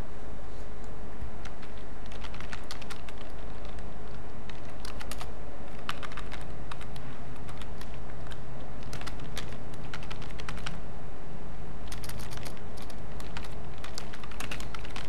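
Computer keyboard typing in about four short bursts of key clicks, over a steady low hum.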